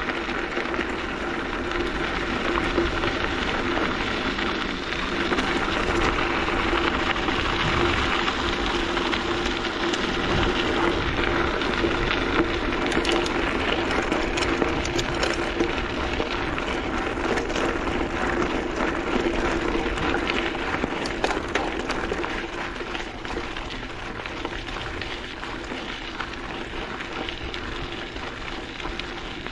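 Mountain bike being ridden along a dirt trail: steady rushing tyre and air noise with many small knocks and rattles from the bike, and a steady hum running through it, easing slightly near the end.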